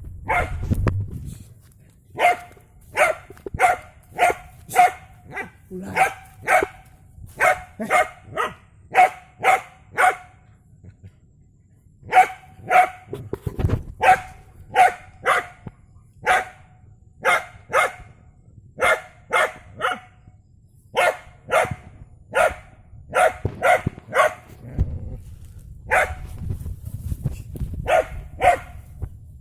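A dog barking over and over, about two barks a second, with a short break about ten seconds in.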